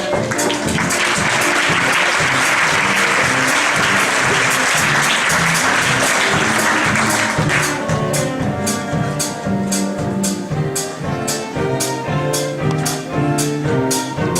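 Audience applauding over band music with brass; the applause swells about a second in and stops about halfway through, leaving the band playing on with a steady beat.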